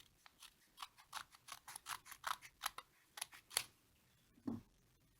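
Scissors cutting open a mailing package: a quick run of short, sharp snips for about three seconds, then a soft thump near the end.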